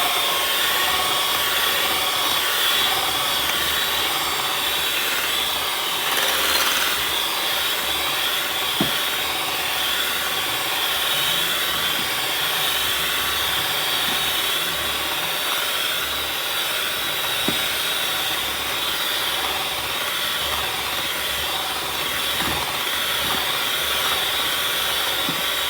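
Electric mixer running steadily at one speed, beating cake batter in a bowl, with a few faint ticks.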